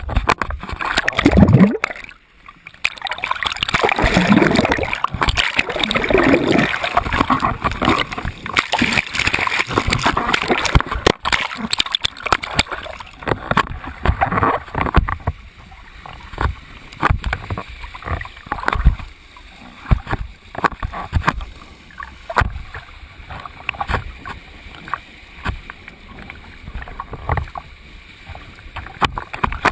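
Water splashing and churning loudly for about the first half, then quieter, scattered splashes and knocks.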